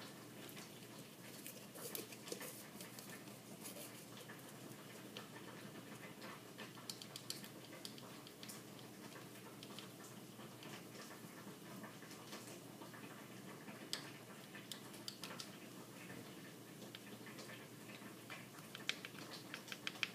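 Faint scattered clicks and light taps of a small spice jar and plastic measuring spoon being handled as ground cinnamon is shaken out, with a quick run of clicks near the end.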